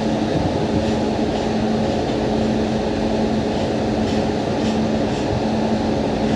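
Steady drone of a standing train: a WAP7 electric locomotive with LHB coaches, running with an even hum tone and a dense low rumble, with faint light ticks now and then.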